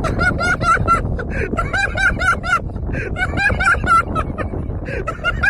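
A high-pitched, sped-up-sounding voice chants quick, evenly repeated syllables, about four to five a second, in short phrases. Under it is the low rumble of wind on the microphone.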